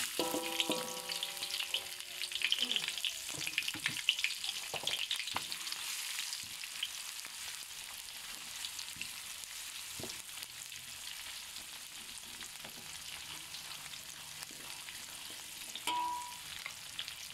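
Sliced onions, shallots, garlic and chillies sizzling in hot oil in a steel wok, stirred with a silicone spatula. The frying is loudest in the first few seconds, with the spatula scraping and tapping the pan, then settles into a steady, quieter sizzle.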